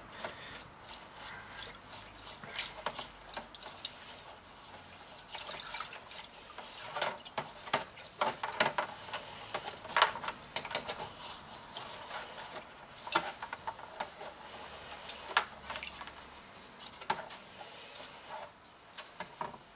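Brush scrubbing soot off turbocharger parts in a container of paint thinner: irregular liquid splashing and dripping with light clicks and knocks as the parts are handled in the liquid.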